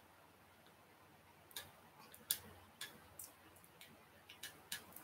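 Faint, scattered small clicks and crinkles of a plastic-wrapped trading-card deck being picked at with the fingers, about half a dozen starting a second and a half in.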